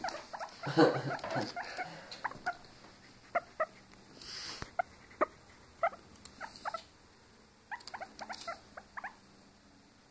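Guinea pig making short, soft squeaks, one every half second or so, with a quicker run of them about eight seconds in; a brief hiss a little past four seconds in.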